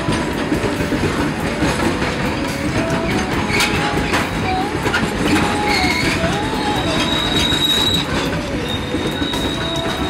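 Indian Railways passenger coaches rolling past at close range, the wheels running over the track in a steady loud rush. A steady high wheel squeal comes in about seven seconds in.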